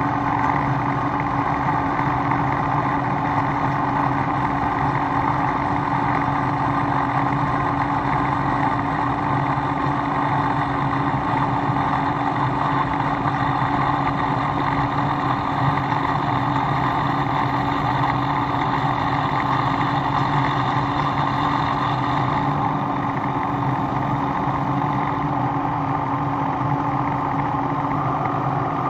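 A motor-driven shop machine running steadily with a constant hum and noise and no hammer strikes; its high end eases off slightly about 22 seconds in.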